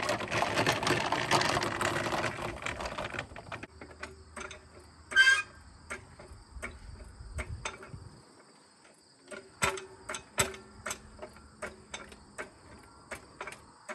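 Loaded furniture dolly rolling on concrete with a camper trailer axle on it, a dense rattling rumble for about the first three seconds. After that, insects chirping in a steady high drone, with scattered sharp clicks and knocks, the loudest about five seconds in.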